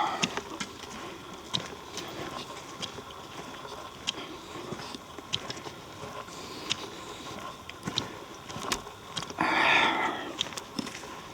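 Footsteps on a dirt trail with scattered small clicks and crunches, and a short breathy rush of noise about nine and a half seconds in.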